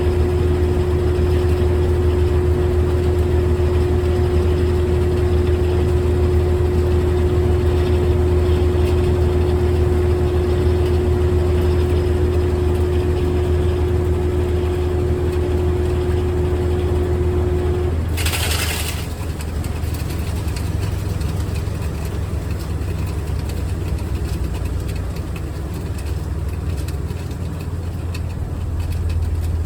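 GE top-load washing machine running, a steady low motor hum with a steady higher whine over it. About two-thirds of the way through the whine stops, followed by a brief hiss, and the machine runs on a little quieter.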